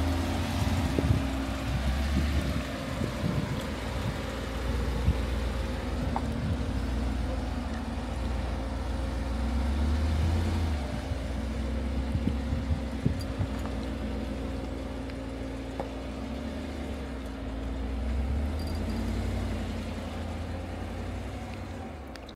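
Jeep engine running at low speed while crawling off-road. The engine note swells briefly about three times as the throttle comes on, and there are scattered short clicks and knocks.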